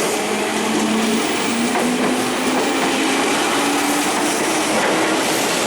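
Train passing close by at speed, a loud steady rush of wheels on rail with a clickety-clack rattle, and a low whine that slowly rises in pitch.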